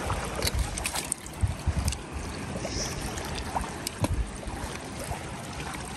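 Sea water sloshing and lapping around a landing net held in the rocky shallows, with a cluster of knocks, taps and splashes in the first two seconds and another at about four seconds as the net is worked in the water.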